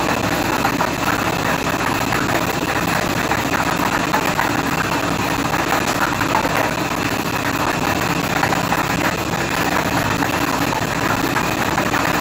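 Acrylic lottery drum spinning steadily on its motor, the numbered plastic balls inside tumbling and clattering against the drum in a dense, continuous rattle.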